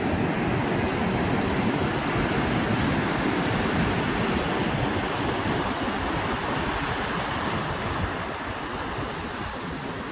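Ocean waves breaking and washing against a rock jetty: a steady rushing surf that eases off over the last couple of seconds.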